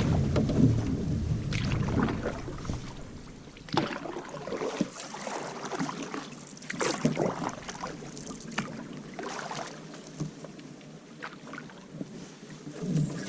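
Canoe paddling: irregular splashes and drips of the paddle in the water. Low wind rumble on the microphone for the first few seconds.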